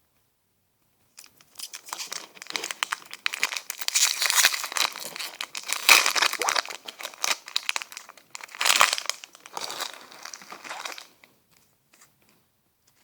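Foil wrapper of a Pokémon trading card booster pack crinkling and tearing as it is opened by hand, with a louder rip about six seconds in and another near nine seconds.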